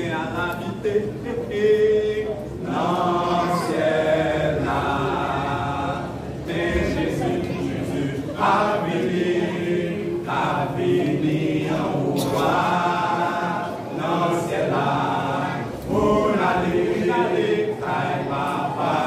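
Men's vocal group singing a gospel song a cappella in harmony, in phrases a few seconds long with brief breaks between them.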